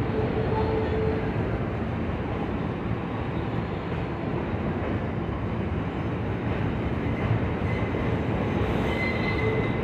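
New York City subway train running on curved track, a steady rumble of wheels on rail. Brief squealing tones rise above it near the start and, higher, toward the end.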